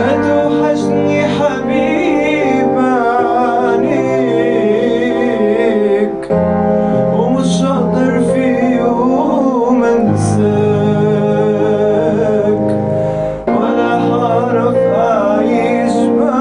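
A male singer sings an Egyptian Arabic song, his voice wavering and ornamented, over sustained instrumental accompaniment.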